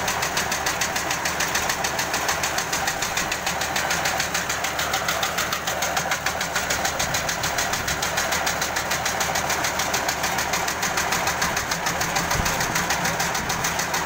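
Engine of a concrete pavement paver running steadily with a fast, even knocking beat while the machine lays concrete.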